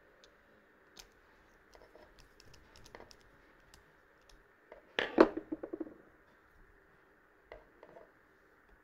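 Small handling clicks and taps from a nut driver tightening a nut on a small 3D-printed plastic pulley mechanism. About five seconds in, a louder knock followed by a quick run of rattling clicks.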